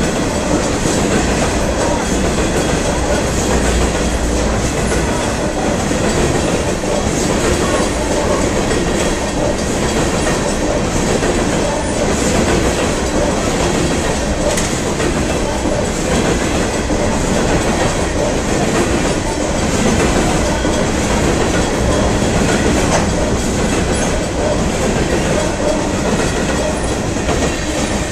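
Coal cars of a unit freight train rolling past close by: a steady rumble and clatter of steel wheels on the rails.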